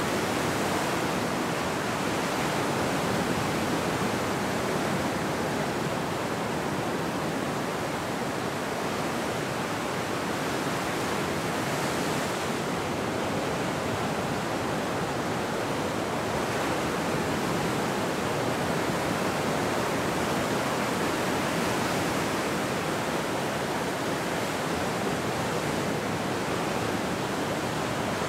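Ocean surf breaking on a beach: a steady wash of waves and foam with no single crash standing out.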